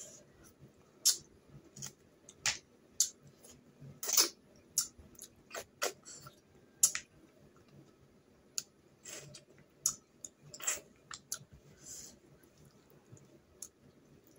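Close-up eating sounds: irregular sharp clicks of snail shells being handled and picked apart by hand, mixed with chewing.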